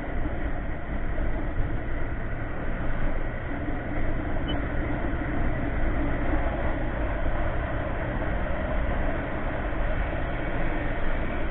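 Steady wind rush on the camera's microphone, mixed with the engine and road noise of a Yamaha Mio MX125 scooter cruising at an even speed.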